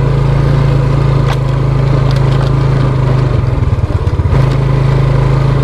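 Small motorbike engine running steadily while riding over a rough dirt track, wavering briefly about three and a half seconds in before settling again.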